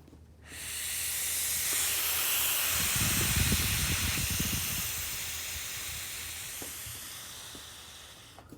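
Air hissing out of a leak in a car engine's vacuum system as air is blown into it by mouth: the hiss marks the vacuum leak. It starts about half a second in, swells, and fades slowly near the end, with a low rumble midway.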